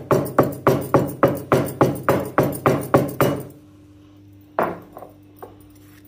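Stone pestle pounding cardamom pods in a stone mortar: quick, even knocks of stone on stone, about three or four a second, which stop about three and a half seconds in, followed by a single knock about a second later.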